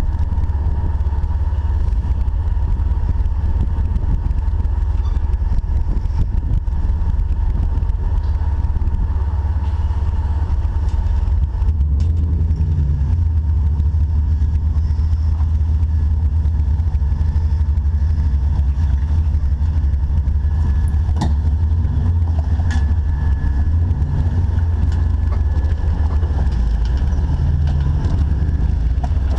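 Jeep engine running as the vehicle drives off-road, a heavy steady low rumble. About twelve seconds in, the engine note starts rising and falling, with a few faint clicks and knocks.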